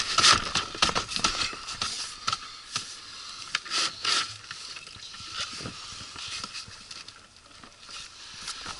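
Irregular clicks, knocks and scrapes of hands working an outboard motor's rubber fuel hose and plastic quick-connector against a red plastic fuel tank and the motor's cowling. The clicks are busiest in the first second and again around three to four seconds in, then thin out.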